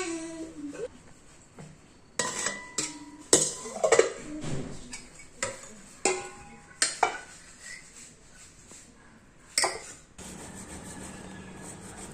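Dishes and utensils clinking and clattering: a string of sharp knocks, several ringing briefly, then a steady hiss begins near the end.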